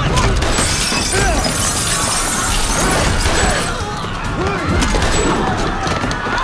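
Film fight-scene soundtrack: a dense run of crashing and shattering impacts over loud music.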